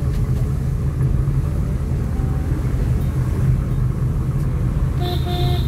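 Moving road vehicle running with a steady low rumble. A short two-part tone sounds near the end.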